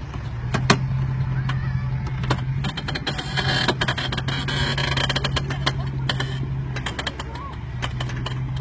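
Lifted Jeep Grand Cherokee WJ's engine running steadily under load as it crawls over rough ground, with many sharp clicks and knocks. A louder rushing noise swells from about three seconds in to past six seconds.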